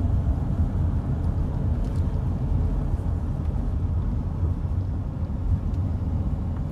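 A car driving, heard from inside the cabin: a steady low rumble of engine and tyres on the road.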